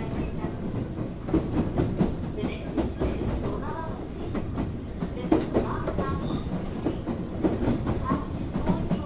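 Onboard running sound of a resistance-controlled Tobu 8000 series electric train: a steady low rumble with an irregular series of knocks as the wheels pass over rail joints.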